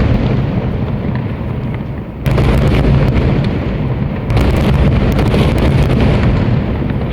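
Large aerial firework shells bursting, their booms blending into a deep rolling rumble. Fresh bursts come about two seconds in and again about four seconds in, each fading slowly.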